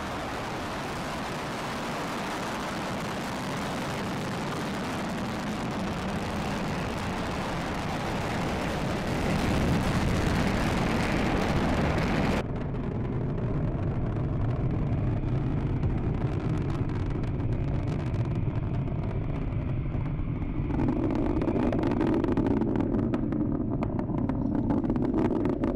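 Falcon 9 rocket's nine Merlin 1D first-stage engines running during ascent, a continuous loud rumbling noise. About halfway through it abruptly loses its hiss and turns duller and lower.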